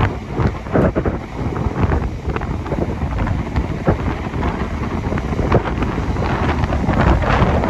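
Coaches of a South Western Railway electric multiple unit, dragged dead by a Class 47 diesel locomotive, rolling past close by: a steady low rumble with many sharp wheel clicks over rail joints and pointwork. Wind buffets the microphone.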